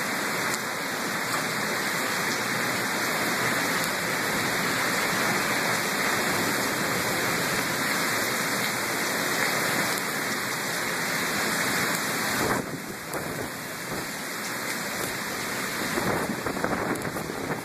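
Heavy rain pouring steadily onto pavement, a dense hiss that eases slightly a little over twelve seconds in.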